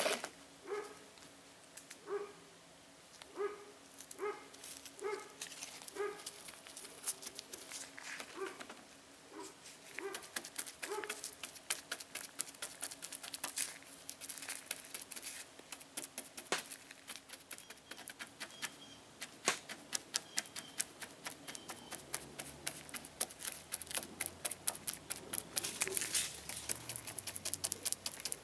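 Chip brush stippling wet fiberglass resin into fiberglass mat. For the first ten seconds or so there are short squeaky squelches about once a second; after that come rapid wet dabbing taps and clicks.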